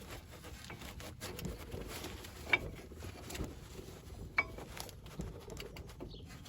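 Metal clinks and scraping as a brake caliper is worked back over new pads, with two sharp ringing clinks about two and a half and four and a half seconds in. The caliper won't go on because its piston has not been pushed back far enough.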